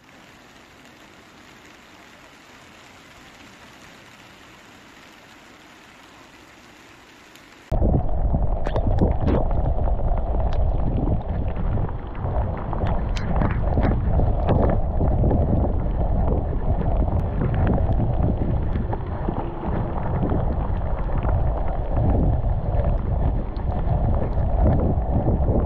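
A soft, even hiss for the first eight seconds. Then, after a sudden cut, a much louder rush of wind buffeting an action camera's microphone on a road bike riding through rain, with scattered ticks of raindrops hitting the camera.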